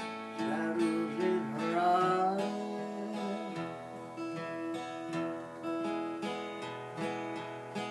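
Acoustic guitar played as an instrumental passage between sung lines of a folk/country song, chords and notes ringing on.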